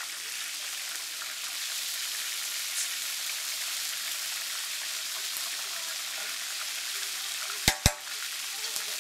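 Skewered, flour-coated mussels deep-frying in a wide, shallow pan of hot oil: a steady sizzle as they are stirred with metal tongs. Near the end, two sharp clicks a fraction of a second apart.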